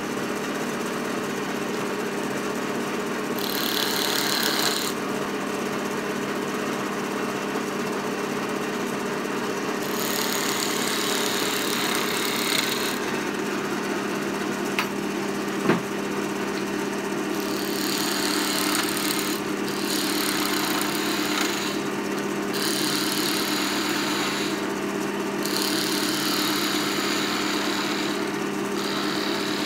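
Record Power wood lathe running with a steady motor hum while a turning tool shapes a spinning wooden chisel-handle blank. The cutting comes in spells of hissing, scraping cuts a few seconds long, with a couple of brief clicks about halfway through.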